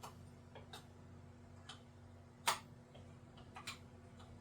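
Scattered light clicks and taps of metal parts and tools being handled while a vehicle speed sensor is worked into an NP208 transfer case, one sharper click about two and a half seconds in, over a faint steady low hum.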